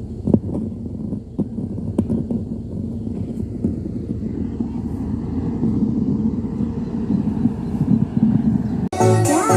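A steady low rumble with a few sharp clicks. Near the end, music starts abruptly and loudly with heavy bass, played through a large outdoor PA sound system during a sound check.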